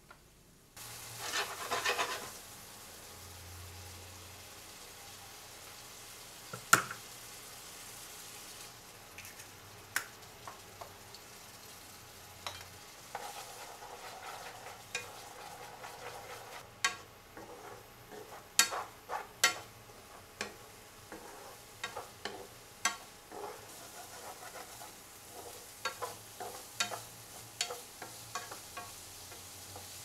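Food frying in a wok with a steady sizzle, while a wooden spatula stirs it and clicks and taps against the pan. The taps are sparse at first, with one loud knock early on, and come often in the second half.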